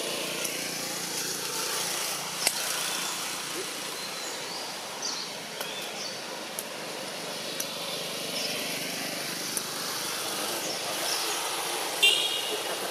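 Outdoor background noise: a steady hiss of distant road traffic, with a few short high chirps and a brief high-pitched call near the end.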